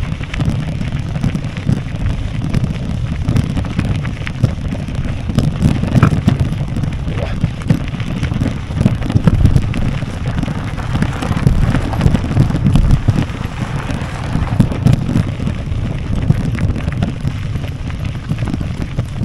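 Wind buffeting the microphone of a handlebar-mounted camera on a bicycle riding over a bumpy dirt track, a steady low rumble full of small jolts and rattles from the camera shaking.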